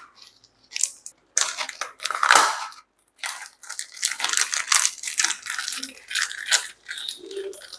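Plastic fish transport bags crinkling and rustling in irregular bursts as they are handled.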